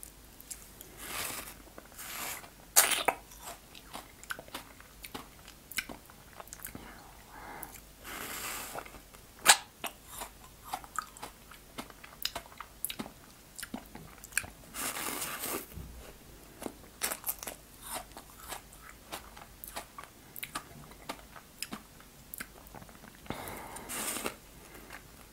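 Close-miked eating of frozen fruit ice from a plastic tube: scattered sharp crunches and cracks as the ice is bitten and chewed, with a few longer noisy stretches in between.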